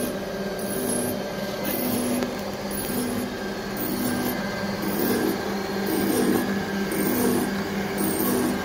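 3E659 drill-grinding machine running: a steady machine hum with a high-pitched pulse about once a second, and the grinding wheel working on a drill bit, rougher from about five seconds in.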